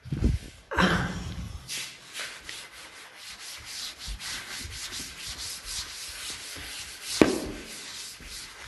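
Board duster rubbing across a chalkboard to erase it, in quick back-and-forth scrubbing strokes, about four or five a second. There are a few louder bumps near the start and one about seven seconds in.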